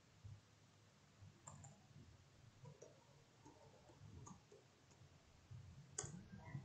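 Faint computer keyboard keystrokes typing out a command, with one sharper key click about six seconds in as the command is entered.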